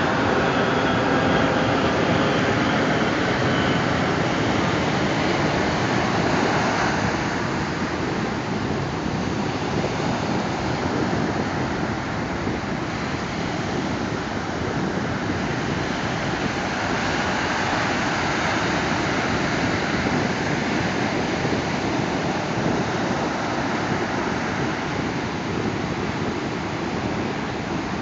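Ocean surf breaking and washing up the beach: a steady rushing wash of waves, a little louder over the first several seconds.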